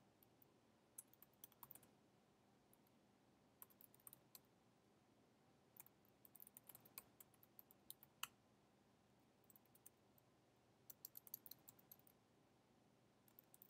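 Faint clicking of computer keyboard keys being typed in short, irregular bursts with pauses between.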